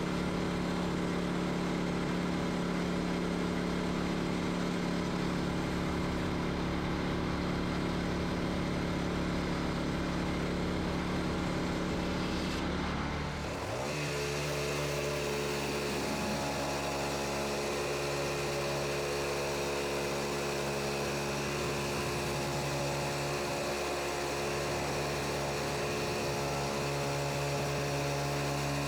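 Wood-Mizer LX25 band sawmill's engine running steadily; about halfway through, its pitch drops slightly and stays at the new, lower speed.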